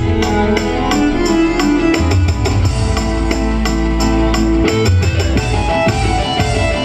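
Loud instrumental music from a keyboard band, held notes over a bass line with a steady beat.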